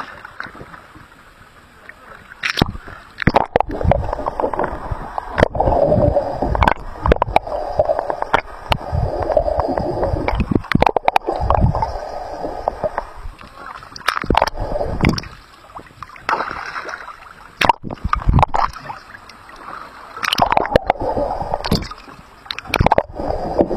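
Seawater around a camera being dipped in and out of the sea: muffled underwater gurgling and sloshing, broken by many sharp splashes and knocks as it goes under and breaks the surface.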